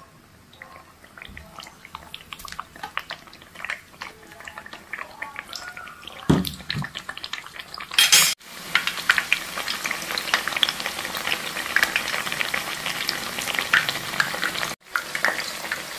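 Halved eggplants frying in hot oil in a wok. Sparse crackling for the first few seconds, a thump about six seconds in and a loud burst about eight seconds in, then a dense, steady sizzle.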